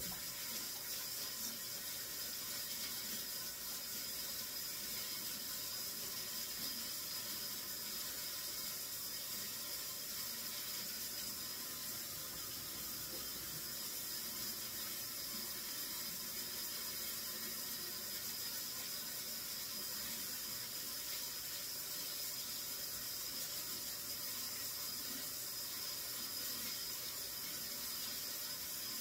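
Kitchen sink tap running in a steady stream of water.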